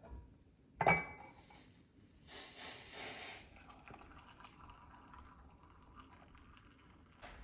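Freshly boiled tea being poured into a cup, with one sharp clink of the cup about a second in.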